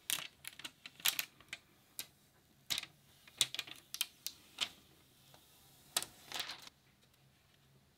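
Thin protective plastic film crackling as it is peeled off and handled on a graphics card's backplate, in an irregular string of sharp crackles and light clicks with a short rustle near the end.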